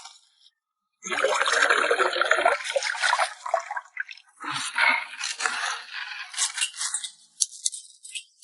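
Water sloshing and scraping for a few seconds, followed by a run of light clinks and taps, like food being rinsed and handled in a pot or bowl.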